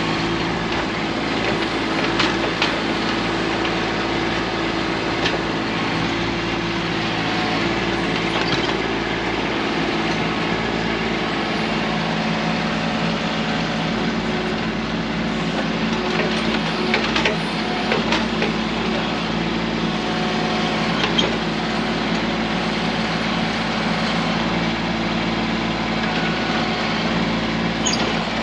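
Kubota B2650 compact tractor's three-cylinder diesel engine running steadily while it works the BH77 backhoe, with a few sharp knocks scattered through.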